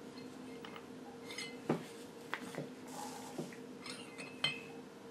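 Small metal parts of plow light mounts clinking and knocking as they are handled: a handful of light, sharp taps, the sharpest just under two seconds in, over a steady low hum.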